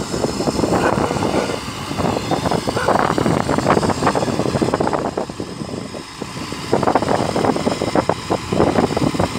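Diesel engine of a borewell drilling rig truck running as the truck manoeuvres, easing off briefly about halfway through and then picking up again.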